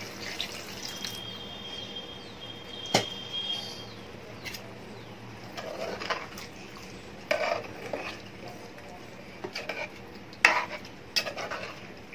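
Steel spoon stirring thin chicken curry in a pressure cooker, with sharp clinks and knocks of metal on the pot at scattered moments, the loudest about three seconds in and around ten seconds in.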